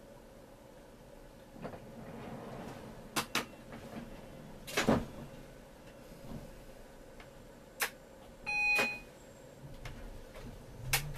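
Tram standing at a stop: a few sharp clicks and knocks from the doors and cab controls, and a short electronic beep about two-thirds of the way through. Just at the end a low hum begins to rise as the tram's motors start to pull away.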